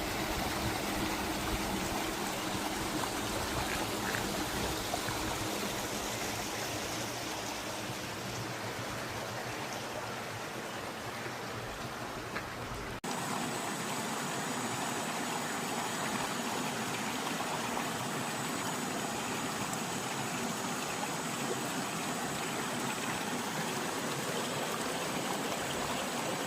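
Stream of water running steadily. Halfway through, the sound changes abruptly to a thinner rush with less low rumble.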